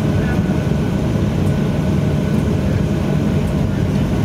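Cabin noise inside a Boeing 737-800 rolling along the runway: a steady, loud low rumble from its CFM56 engines and the wheels on the runway, with a faint steady whine above it.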